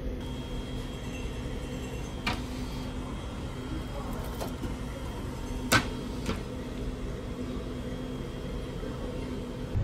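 Sliding glass lid of a chest freezer knocking twice, about two seconds in and again near six seconds, as it is slid open and shut, over a steady low hum.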